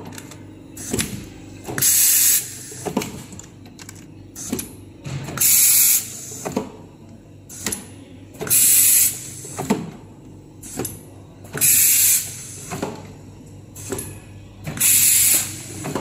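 Automatic pouch filling machine running, its pneumatic valves venting compressed air in a loud hiss five times at about three-second intervals, with the clicks and knocks of its air cylinders and moving parts between the hisses.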